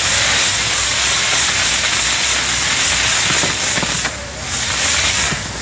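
Pyrotechnic fountains on a castillo fireworks tower burning with a loud, steady hiss that dips briefly about four seconds in.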